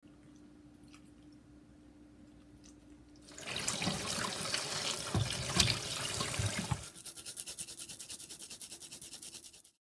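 Tap water running hard into a stainless steel bowl of vegetables in the sink for about three seconds, after a quiet start. It is followed by fast, even scraping strokes, several a second, of a clove being grated on a fine hand grater, which stop suddenly just before the end.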